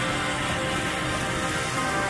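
Background music of soft, sustained held tones over a steady hiss.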